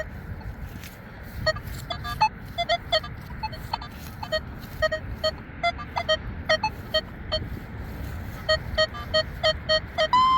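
Nokta Legend metal detector giving short, irregular target beeps at a few different pitches as the coil is swept over the ground, over wind rumble on the microphone. Just before the end, a steady held tone begins.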